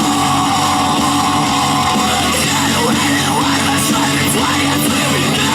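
Rock song with distorted electric guitars and drums playing between sung lines, heard through a Skullcandy Terrain XT portable speaker.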